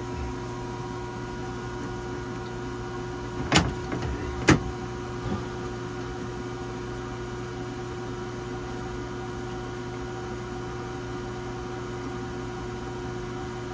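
A few sharp metal knocks while an autopilot drive unit is fitted to the steering gear, the two loudest about three and a half and four and a half seconds in. A steady electrical hum runs underneath throughout.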